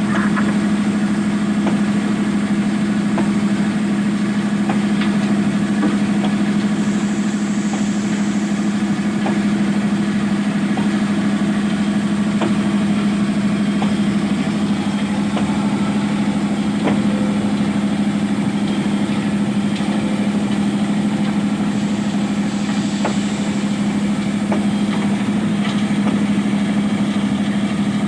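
Excavator's diesel engine running steadily at an even speed, a constant low hum, with a few faint clicks scattered through it.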